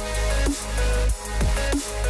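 Background electronic music with a deep bass line and repeating pitch-dropping bass sweeps in a steady beat.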